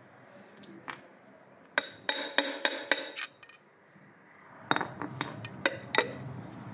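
Steel bar clinking against the connecting rods and crankshaft of an opened engine block: two quick runs of sharp metal-on-metal clinks with a short ringing tone, the first about two seconds in and the second near the end.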